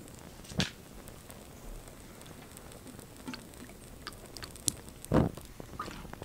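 Small fire burning on a toy model car, with scattered crackles and pops. A louder burst comes about five seconds in, just before the flames flare up.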